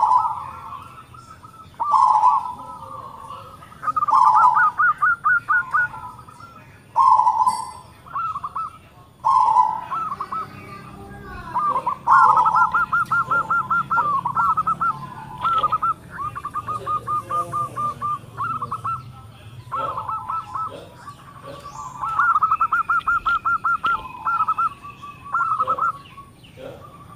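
Local zebra dove (perkutut) singing, with a big voice and closely spaced notes. It gives phrase after phrase, each a loud coo followed by a quick run of short clipped notes, repeated every two seconds or so. Around the middle there is one longer unbroken run of notes.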